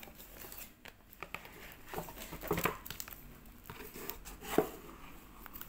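Cardboard box and shrink-wrapped packaging being handled as the box is opened: scattered light rustles and taps, with one sharper tap about four and a half seconds in.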